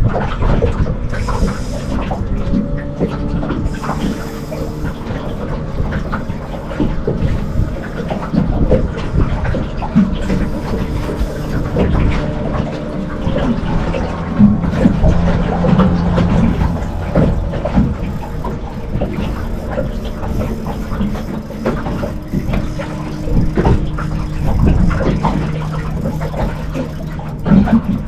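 Small boat on the water with its motor running as a steady hum, shifting pitch now and then, under irregular knocks and water splashing.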